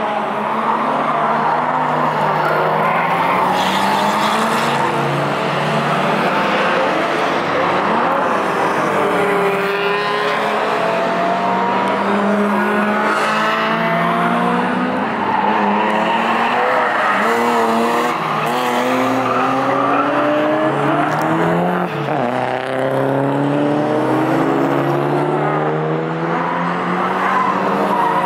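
Several race cars' engines revving through a corner: engine notes climbing and falling repeatedly as they brake, shift and accelerate, overlapping one another, with tyres squealing.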